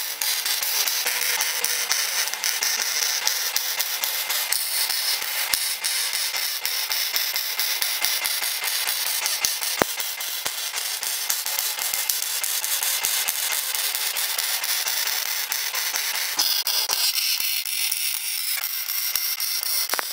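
Wire-feed welder arc crackling and sizzling steadily as beads are laid on sheet steel, a dense run of rapid pops over a hiss. The tone changes about four seconds before the end, and the welding stops just at the close.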